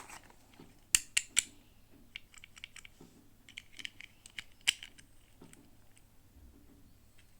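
Small plastic pieces and packaging being handled: three sharp clicks about a second in, then a run of light taps and crinkles with one more loud click partway through.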